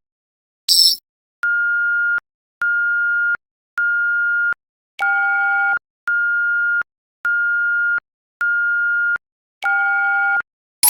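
Synthesized emergency-alert beeps: a short high chirp near the start, then eight steady beeps at one pitch, each under a second long, about one every 1.2 seconds. The fourth and eighth beeps carry an added lower tone.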